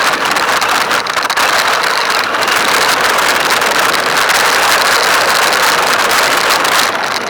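Radio-controlled car running, a loud steady noise with no clear let-up.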